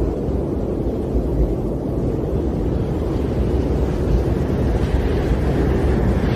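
Storm wind blowing steadily in a deep rumbling rush, with a little more hiss coming in during the second half.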